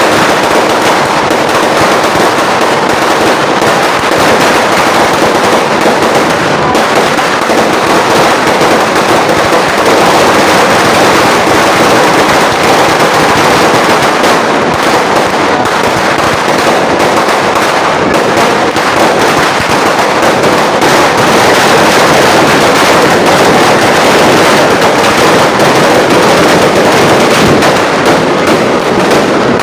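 A long string of firecrackers, a 3,000-round sawa belt, going off in a loud, unbroken rapid crackle of countless small pops.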